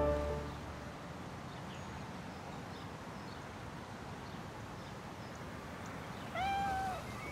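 Outdoor park ambience: a steady hiss of background noise with faint bird chirps, then about six seconds in a single drawn-out bird call that rises and falls slightly in pitch.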